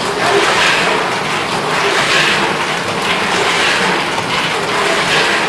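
Snack-food packing machine running with puffed snacks passing through it: a steady noise of machinery and product that swells in regular surges about every second and a half.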